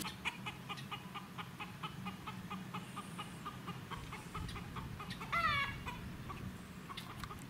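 Chickens clucking in a quick run of short, repeated notes, with one louder, falling call about five seconds in.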